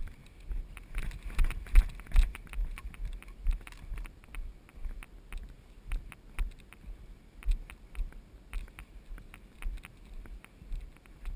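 Irregular dull thumps and knocks with scattered sharp ticks, and some wind noise on the microphone: handling and movement noise on a camera carried by a moving player.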